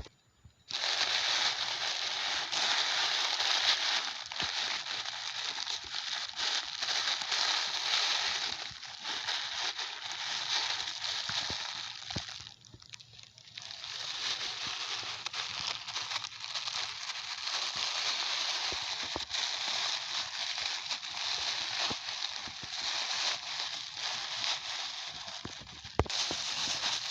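Plastic sheeting and polythene bags rustling and crinkling as plastic waste is handled and pushed into a garbage bag, a dense crackle of small clicks that drops away briefly about halfway through.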